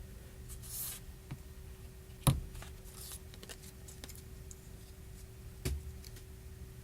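Small handling noises of fingers working a phone battery's adhesive tabs: a brief rustle, a sharp tap about two seconds in with a few light ticks after it, and another tap near the end, over a faint steady hum.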